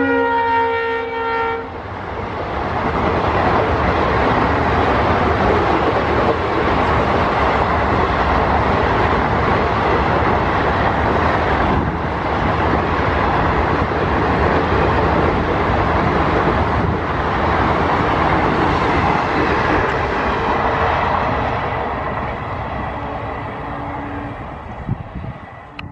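Diesel locomotive horn sounding as it passes, dropping in pitch and ending about two seconds in, followed by the steady rumble and wheel clatter of a long train of passenger coaches rolling past on jointed track, fading out near the end.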